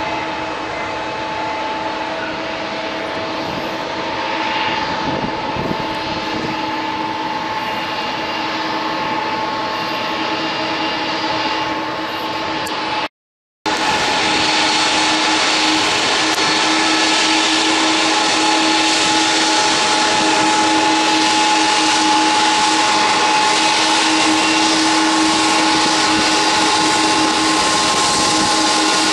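Airliner turbines running steadily across an airport apron: a constant loud hiss with a steady whine in it. The sound cuts out for a moment about halfway through, then comes back slightly louder.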